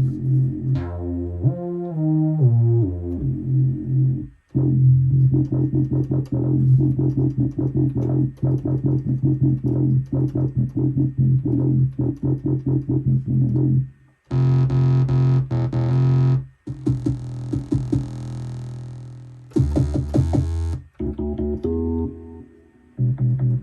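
Korg Minilogue analog synthesizer playing a rhythmic repeating pattern of notes with a strong low bass note. The sound changes character several times after short breaks, as different preset programs are stepped through.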